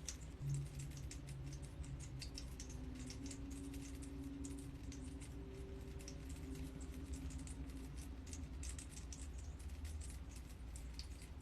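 Water drops from a rain cloud humidifier falling and pattering in a quick, irregular stream of soft ticks, fairly faint, over a low steady hum.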